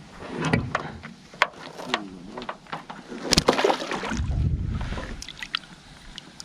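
Scattered knocks and clicks in a small boat, the loudest a little over three seconds in and followed by a low rumble for about a second, with water lapping beneath.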